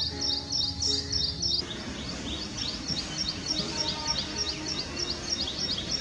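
Ashy prinia singing: a long run of short, high, evenly repeated notes, about three a second, over soft background music.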